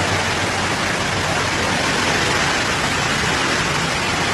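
Heavy hail falling hard in a storm, with rain: a dense, steady, unbroken hiss of countless impacts.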